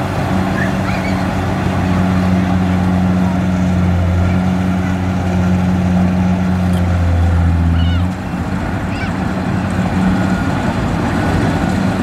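Kubota DC70 rice combine harvester's diesel engine and threshing gear running steadily under load while cutting rice. The deep hum drops suddenly about eight seconds in.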